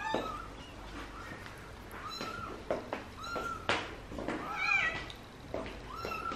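A cat meowing over and over, short high calls about once a second, with a brief sharp noise near the middle.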